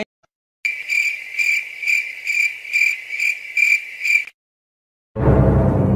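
Cricket-chirping sound effect: a high trill pulsing about twice a second for about three and a half seconds, cut in cleanly between stretches of dead silence. Music comes in near the end.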